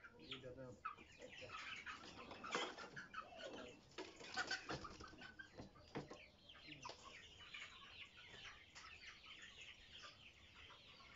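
Tiger chickens clucking and squawking while being handled and put into a plastic crate, with a few sharp knocks; the calls are busiest in the first half and thin out toward the end.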